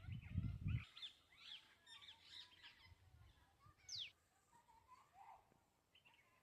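Several small birds chirping and calling, with one sharp whistle that falls steeply in pitch about four seconds in. A low rumble fills the first second.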